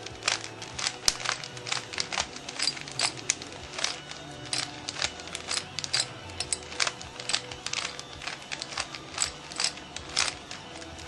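Rubik's Cube being turned quickly by hand: an irregular run of sharp plastic clicks and clacks, several a second, as the layers are twisted. Faint music plays underneath.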